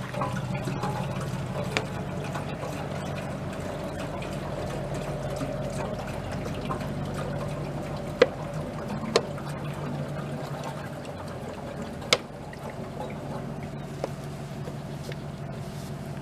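Water poured from a 2-liter bottle into a wood gasifier's water reservoir, a steady pouring trickle as the tank fills. A few short sharp clicks about 8, 9 and 12 seconds in.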